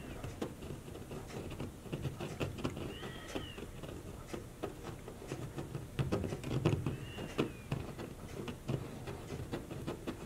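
Light irregular crackling and ticking as a plastic welder's hot tip heats steel reinforcing mesh and melts it into a polyethylene water tank. Twice a brief high whine rises and falls over the crackle.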